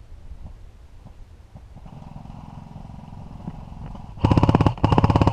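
An airsoft rifle firing on full auto: two short bursts of rapid, evenly spaced shots near the end, the first starting about four seconds in. A fainter steady hum runs for a couple of seconds before them.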